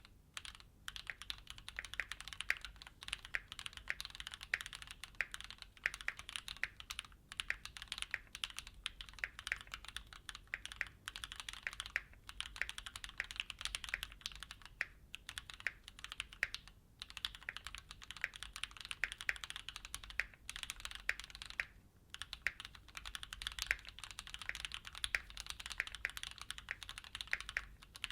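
Typing on a Keychron Q6 full-size mechanical keyboard fitted with stock Gateron G Pro Brown tactile switches: a fast, continuous clatter of keystrokes broken by a few short pauses.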